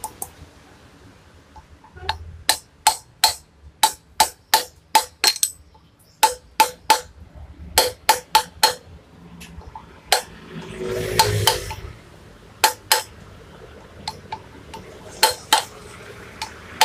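Hammer striking an aluminium tube used as a drift to drive a new bushing into a motorcycle wheel hub. It makes rapid metallic taps, about two to three a second, in runs with short pauses and a brief scuffing noise in between.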